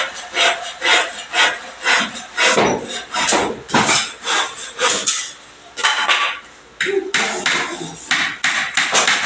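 Hammer blows struck in a steady run, about two a second, with a brief let-up around the middle.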